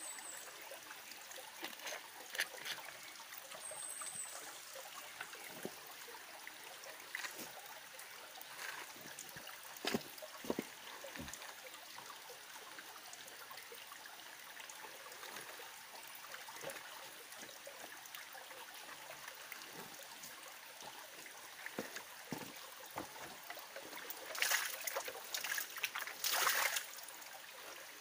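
Shallow stream trickling steadily over rocks, with a few louder splashes near the end.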